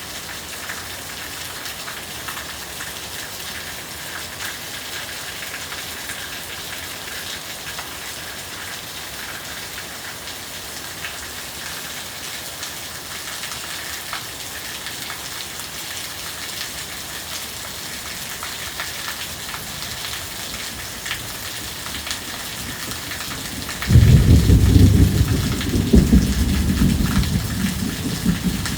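Heavy rain pouring steadily in a downpour; near the end a sudden loud clap of thunder breaks in and rumbles on.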